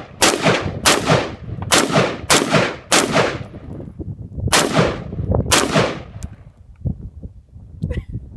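Colt 6940 AR-15 rifle firing single shots, eight in all: six in quick succession about half a second apart, then a pause and two more. Each shot leaves a long trailing echo.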